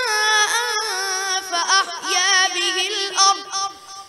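A boy reciting the Quran in melodic tajweed style, drawing out long held notes that waver and slide in pitch. The voice falls away briefly for a breath near the end.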